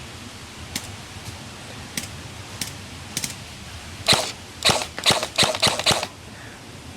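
Airsoft guns firing: a few faint, scattered shots, then a quick string of loud shots close by, from about four to six seconds in.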